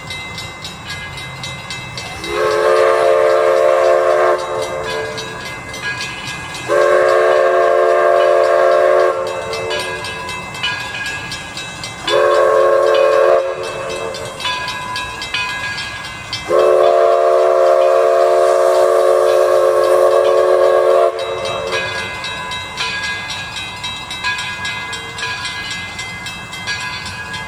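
Six-chime steam whistle on a 4-4-0 steam locomotive sounding four blasts (long, long, short, long, the last about four seconds), the grade-crossing signal. A steady clatter of the moving train runs beneath and between the blasts.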